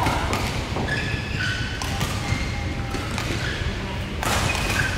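Badminton hall sounds: short high squeaks of court shoes on the court mats and sharp racket-on-shuttlecock hits, over a steady low hall rumble.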